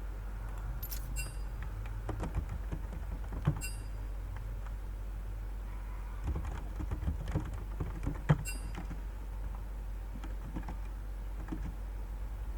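Scattered light clicks and taps over a steady low electrical hum. Three of the clicks are sharper, each with a short high ring, about a second, three and a half and eight seconds in.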